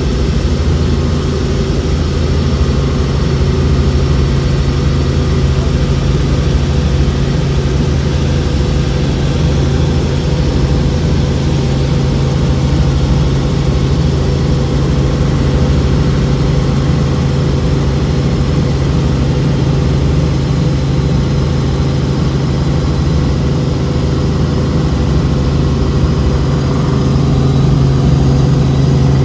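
Helicopter in flight heard from inside the cabin: the steady drone of engine and rotor, with a strong low hum.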